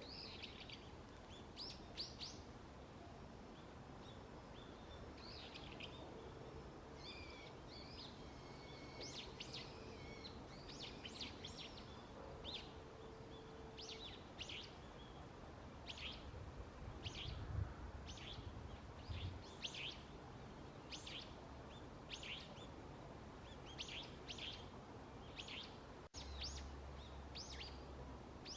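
Wild birds calling: many short, high chirps, settling in the second half into sharp calls repeated about once a second.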